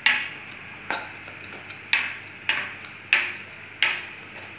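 Small plastic flan moulds being taken one by one off a stack and set down on a table. Each makes a sharp plastic click, six in all, roughly one a second.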